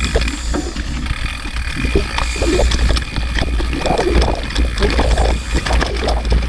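Mountain bike riding over a rough dirt trail, heard from a handlebar-mounted action camera: a loud, steady low wind rumble on the microphone, with constant rattling and knocks from the bike over the ground.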